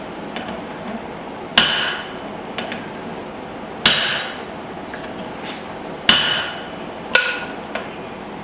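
Blacksmith's hand hammer striking a punch being driven through hot spring steel: four heavy, ringing blows about two seconds apart, with a couple of lighter taps between them.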